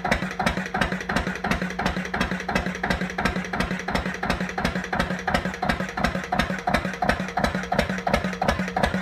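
Lister CS 6/1 single-cylinder water-cooled diesel engine running steadily at about 650 rpm, an even beat of about five strokes a second over a steady low hum.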